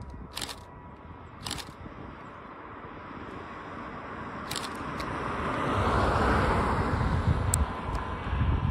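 Jet engine noise from a high-wing jet taking off and climbing out, a broad rushing sound swelling over about six seconds and then holding, with low rumble underneath and a few sharp clicks.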